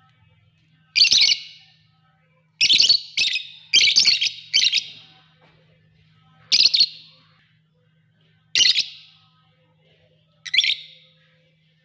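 Lovebirds giving short, shrill chirping calls, about nine in all, some in quick runs of two or three and others a couple of seconds apart.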